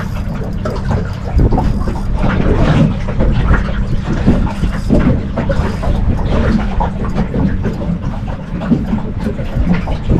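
Small boat on open water: a loud, continuous low rumble with wind buffeting the microphone and irregular knocks and splashes.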